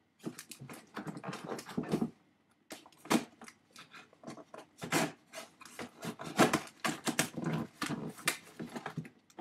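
A cardboard box being cut open with a knife and handled, with irregular scraping and rustling of the cardboard.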